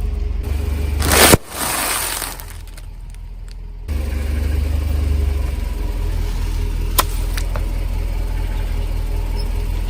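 Car engine running with a steady low rumble while the car rolls over objects. One loud crushing burst comes about a second in, and a single sharp click comes near the middle.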